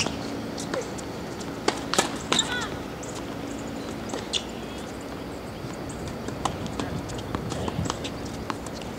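Tennis balls bouncing and being tapped on an outdoor hard court between points: scattered sharp single taps, with a cluster about two seconds in.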